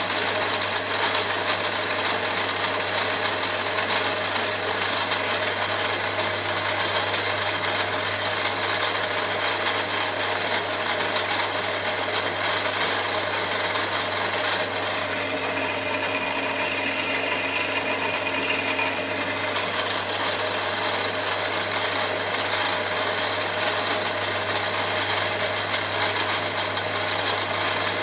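Milling machine running, its end mill cutting the aluminium cylinder block as the table feeds it past the cutter: a steady mechanical din over a low hum, with a thin higher whine joining for about four seconds just past halfway.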